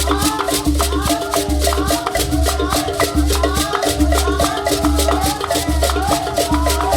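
Upbeat dance music with a fast, even shaker rhythm over a pulsing bass and a short, sliding melodic line.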